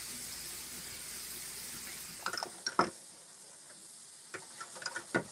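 Apples sautéing in butter and sugar in a skillet, a steady sizzle. After about two and a half seconds it turns quieter, with scattered light clicks.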